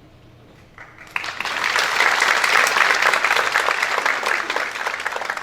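Audience applauding. The clapping starts about a second in, swells to a dense peak, and begins to thin out near the end.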